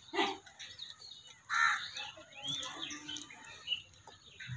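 Birds chirping outdoors: a scatter of short calls and a few quick rising-and-falling whistles, with one louder brief sound about one and a half seconds in.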